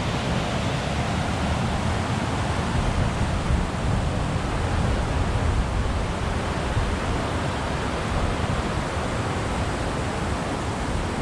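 Steady, loud outdoor rushing noise with a rumbling, fluttering low end, of the kind made by fast-running water or by wind on the microphone.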